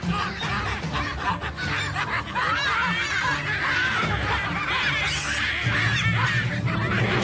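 Background music with steady low notes, over a baboon's rapid, wavering, high-pitched screams and chatter. These are distress cries of a baboon seized by a leopard.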